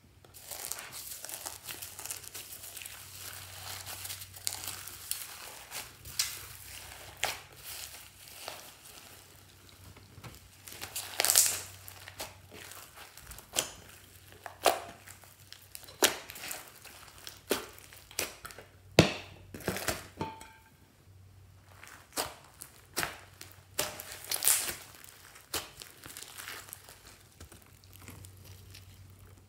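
Hands squishing and stretching slime mixed with small foam beads: a steady crinkly crackle from the beads, with sharp pops of air about once a second from about six seconds in.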